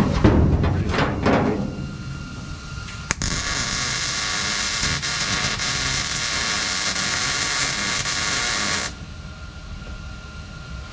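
MIG welder running a weld on the sheet-metal shifter hump: a steady hiss that starts about three seconds in and cuts off sharply some six seconds later. A few knocks come in the first second or so.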